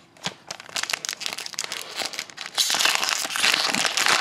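Foil wrapper of a 2012-13 Fleer Retro hockey card pack crinkling and tearing as it is opened by hand: scattered crackles at first, then denser, louder crinkling over the last second and a half.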